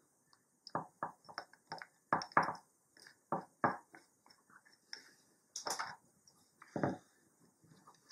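Handling noise as a compact camera is fitted into a plastic camera bracket: an irregular run of short clicks and knocks of hard plastic, some sharper than others.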